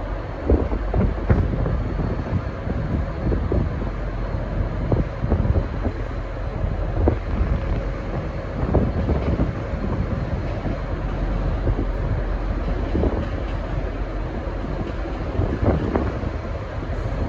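V/Line N-class diesel-electric locomotive and its train departing, the engine running under load with a steady low rumble and a run of knocks from the wheels and couplings. Wind buffets the microphone.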